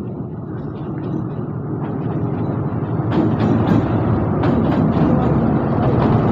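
Alsthom diesel-electric locomotive 4150 drawing into the station to stop, its deep engine rumble growing louder as it nears and passes close by. From about three seconds in, sharp clicks from the wheels crossing rail joints join the rumble.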